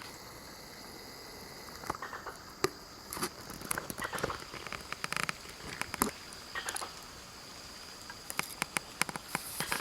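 Insects keeping up a steady high-pitched drone, with scattered irregular clicks and ticks over it from about two seconds in.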